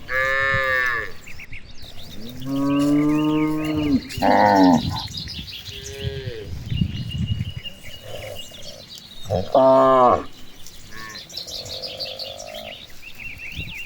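Cattle mooing, about four or five calls: a long one a few seconds in, shorter ones after it and another about ten seconds in. Birds chirp between the calls.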